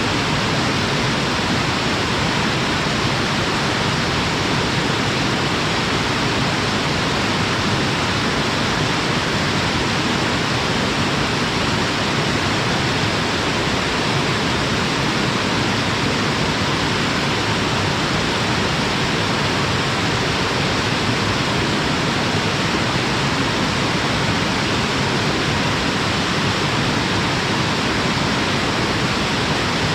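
A waterfall's steady rush of falling water, an even hiss that doesn't change.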